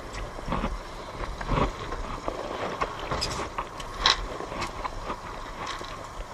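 Small fishing boat under way: a steady low rumble from the outboard motor and the water, with scattered knocks and scrapes on the deck.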